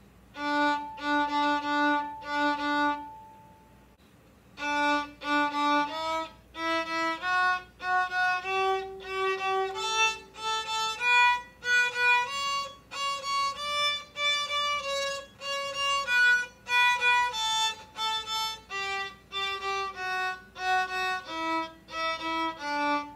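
Solo violin playing a simple bowed tune. It opens with four short repeated notes on a low pitch and pauses for about a second. It then climbs step by step in short notes, comes back down and ends on the repeated low note it began with.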